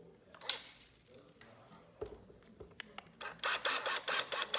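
Small Torx screwdriver working screws on a portable speaker's passive radiator: a sharp click about half a second in, a soft knock about two seconds in, then a quick run of ratchet-like clicks near the end.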